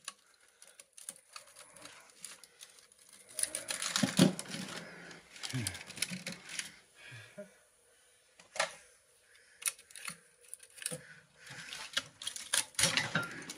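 Irregular clicks, clinks and scraping of cut copper wire and metal pieces being pried and pulled by hand out of a generator's field-coil housing, with a few dull knocks.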